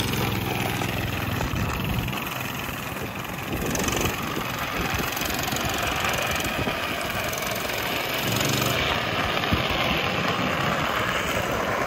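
Coleman mini bike's small single-cylinder engine running steadily under load as it tows a furniture cart, mixed with a steady rushing noise of the cart's wheels rolling.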